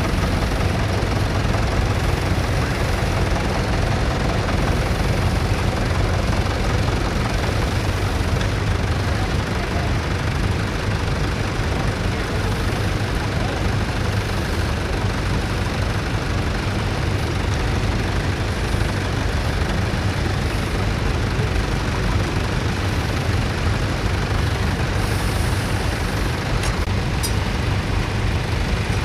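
Vintage tractor engine running steadily, an unbroken low hum with no changes in speed.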